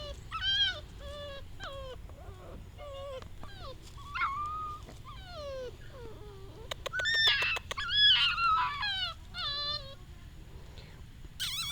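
Six-week-old pit bull puppy whining and whimpering over and over in short, high, falling cries, loudest a little past the middle. A quick run of sharp clicks comes just before the loudest cries.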